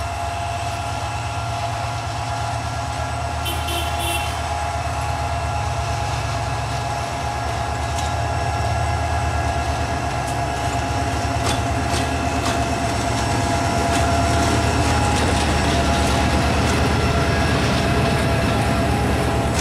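Diesel-electric locomotive hauling a passenger train past at low speed: a steady engine throb with a whine above it, growing louder as it nears. From about halfway in, wheels click over rail joints.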